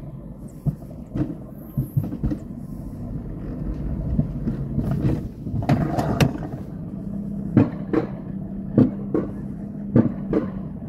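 Mountain coaster sled being hauled up the lift section of its metal rail track, the wheels rumbling on the rails. Sharp clacks come in regular pairs about every second and a quarter, and a steady hum joins about seven seconds in.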